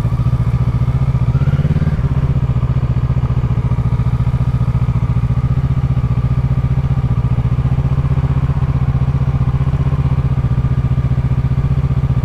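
2012 Kawasaki 650 motorcycle's parallel-twin engine idling steadily, with a short blip of revs about a second and a half in.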